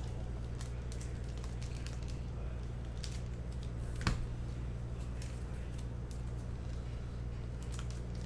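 A steady low hum, with faint scattered clicks and rustles of trading cards and packs being handled at a desk, and one sharper tap about four seconds in.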